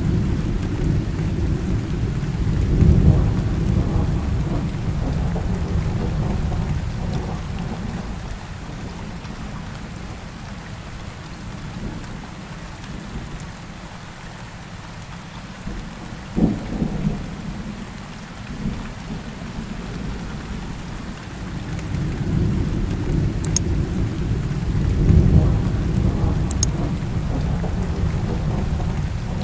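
Rainstorm soundtrack: steady rain with long rolls of thunder that swell in the first few seconds and again near the end, and a short crack about halfway through.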